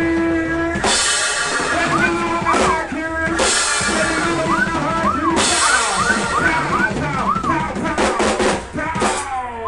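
Funk band playing: a drum kit keeping a beat with cymbal crashes about every two seconds, over keyboard and a lead line that bends up and down in pitch.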